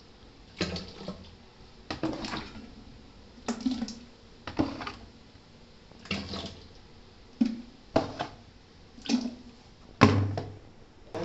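Tamarind water being scooped with a mug from a basin and poured into steel pots: a series of about nine short splashing pours, one every second or so.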